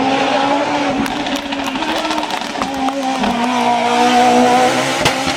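Rally car engine running hard at high revs, its pitch holding fairly steady with small dips. Near the end come a few sharp pops as the revs drop and climb again.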